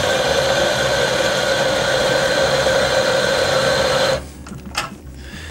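Electric espresso grinder running steadily with a constant hum while grinding beans into the portafilter, a 16-gram double dose. It stops abruptly about four seconds in, followed by a couple of light knocks.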